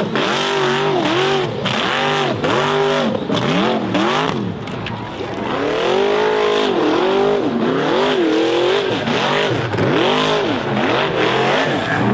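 Off-road hill-climb buggy engines revving hard, the pitch rising and falling sharply about twice a second as the throttle is worked on a steep loose-dirt climb, with scattered short crunches and spray from spinning tyres.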